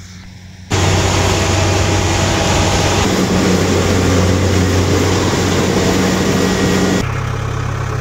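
Rice combine harvester running loud, a steady engine drone under a dense mechanical din, cutting in abruptly about a second in. Near the end it drops to a quieter, steady engine hum.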